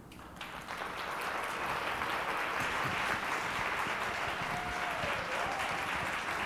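Audience applauding at the end of a talk, the clapping swelling over the first second and then holding steady.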